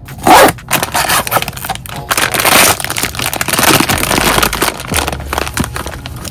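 Crinkly wrapping of a Pop Mart blind box being handled and opened by hand: a dense crackling that starts about a quarter second in and eases off near the end. Soft background music.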